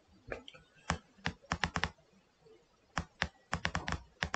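Sharp clicks of computer input in quick, uneven clusters, about a dozen in all, as a font list is scrolled down.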